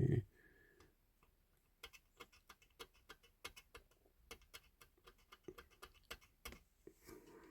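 Faint, irregular light clicks and taps, roughly two or three a second, from small hand tools working at the parts of a 1/18 scale diecast model car.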